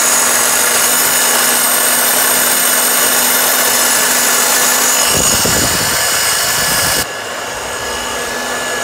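Power drill turning a roller grain mill as it crushes malt: a steady motor whine over the grinding, dropping abruptly in level about seven seconds in.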